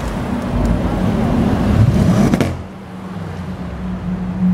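A performance car engine revs hard, its pitch rising to a peak, and cuts off abruptly about two and a half seconds in. A quieter, steady engine drone follows.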